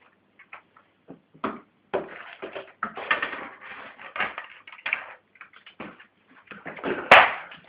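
Irregular rustling and scraping as a cat tugs at and makes off with ostrich feathers, with one sharp knock about seven seconds in.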